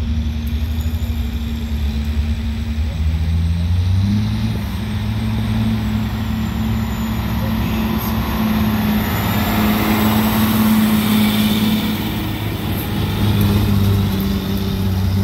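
Diesel semi truck pulling a weight-transfer sled under full load. The engine's steady low drone steps up in pitch about three to four seconds in, with a thin high whistle that rises over the first few seconds and then holds. The sound swells toward the middle and again near the end as the truck comes close.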